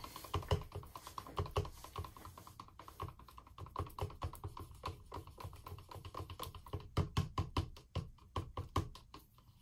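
Wooden craft stick beating a white mix of acrylic paint and pouring medium in a plastic cup: a quick, even clatter of clicks and knocks as the stick strikes the cup's walls.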